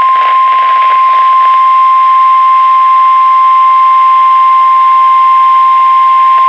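NOAA Weather Radio's 1050 Hz Warning Alarm Tone: one loud, steady, unwavering tone that signals a warning broadcast is about to follow, heard over radio hiss.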